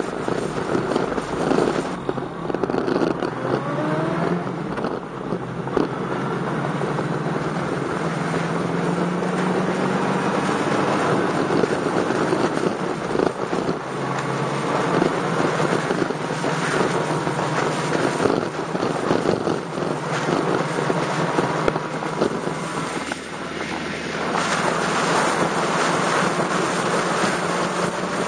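Motorcycle engine running at a steady cruising speed with a low hum, under heavy wind buffeting on the bike-mounted camera's microphone.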